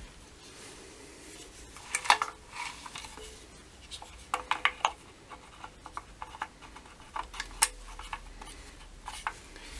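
Irregular light metallic clinks and clicks of Pioneer P40 chainsaw parts being handled as its top cover is taken off. There is a quick run of clicks about halfway through.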